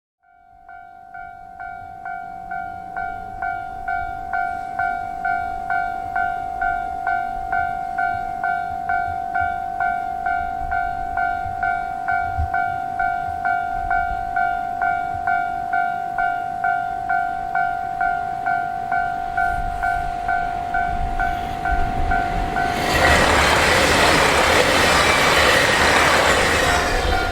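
Railway level-crossing warning bell ringing in steady, evenly repeated dings, about one and a half a second. About 23 seconds in, a train passes and its loud rushing noise covers the bell.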